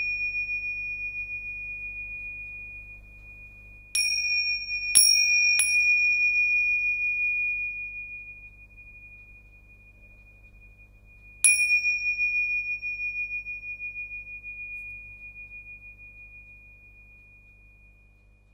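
A pair of large Tibetan tingsha cymbals struck together: a fading ring, then three strikes close together about four to six seconds in, and one more a little past the middle. Each strike leaves one high, pulsing ring that slowly dies away.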